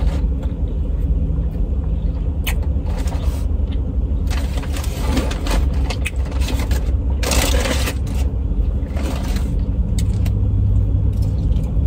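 Car engine idling, heard from inside the cabin as a steady low rumble. A few clicks and a short burst of noise about seven seconds in, and the low hum grows a little stronger near the end.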